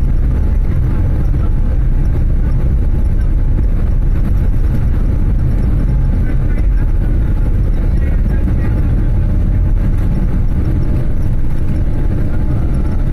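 Boeing 787-8 Dreamliner cabin noise during the takeoff roll: a loud, steady rumble of the jet engines at takeoff thrust mixed with the wheels running over the runway, heard from a window seat behind the wing.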